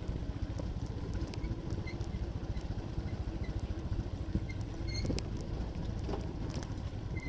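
Vehicle riding along a gravel road: a steady low rumble of engine and tyres with many small rattles and knocks, and short high chirps now and then.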